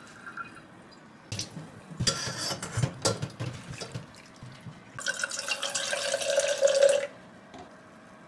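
Wet soba noodles squeezed and dropped into a ceramic bowl with water dripping, then water poured from a clear measuring jug into the bowl for about two seconds, stopping sharply.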